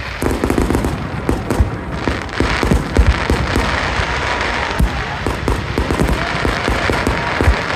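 Aerial fireworks bursting in rapid succession: a string of booms and dense crackling, the loudest bangs about three seconds in.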